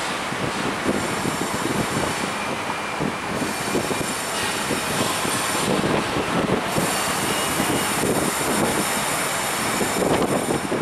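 Open-top Scania K230UB double-decker bus on the move, heard from its open upper deck: a steady rush of wind buffeting the microphone, mixed with road and running noise from the bus.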